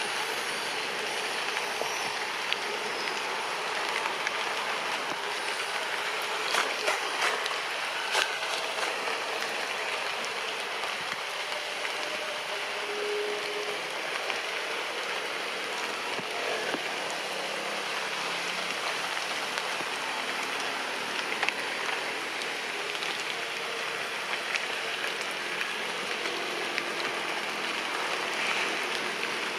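Steady rain falling on tree leaves, an even hiss with scattered louder drops striking close by.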